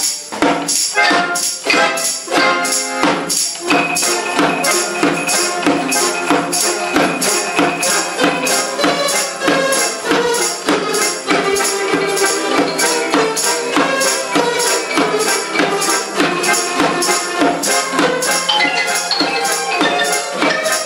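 A folk ensemble plays a lively tune on flute, hammered dulcimer and mandolins, with a steady beat.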